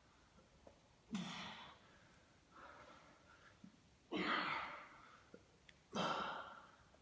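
A man breathing out hard with the effort of push-ups: four sharp exhalations about every one and a half to two seconds, the second fainter than the rest.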